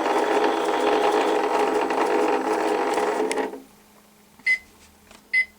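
Battery-powered toy washing machine's small motor whirring as the drum spins, stopping about three and a half seconds in, then two short electronic beeps signalling the end of the wash cycle.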